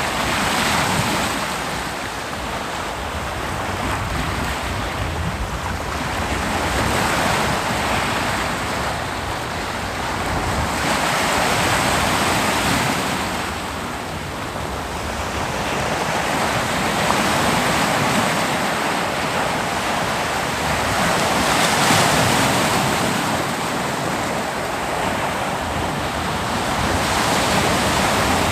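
Ocean waves breaking on a beach: a continuous wash of surf that swells and eases every four to five seconds.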